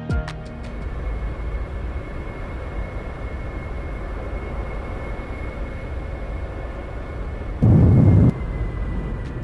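Airplane jet engine noise: a steady rumbling roar with a thin high whine running over it. A loud, short, deep thump comes about eight seconds in.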